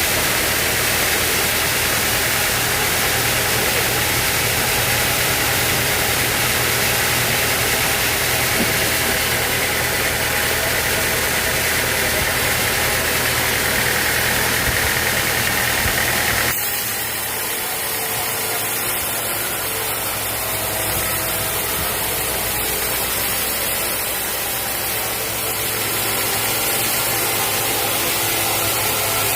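Sawmill machinery running steadily: a constant engine-like hum with a hiss over it. About two-thirds of the way through, the sound changes abruptly and the low hum drops away.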